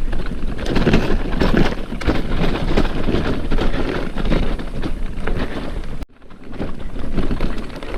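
Bicycle with no suspension rattling and bumping over a rough dirt trail, with wind buffeting the microphone. The sound cuts out for a moment about six seconds in, then carries on.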